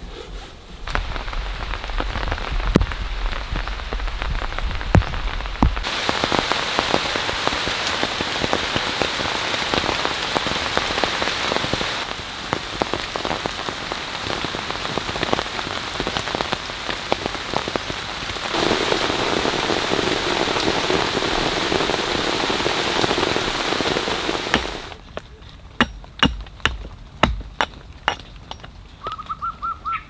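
Heavy rain falling in a steady hiss that shifts in tone abruptly several times, then stops about 25 seconds in. Scattered sharp taps follow, and a bird gives a short trilled call near the end.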